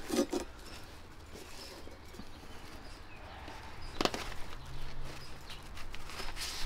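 Fabric grass-catcher bag being worked by hand onto the mower bagger's metal frame: rustling and handling noise, with a sharp click right at the start and another about four seconds in as the plastic hook-on clips are pushed on.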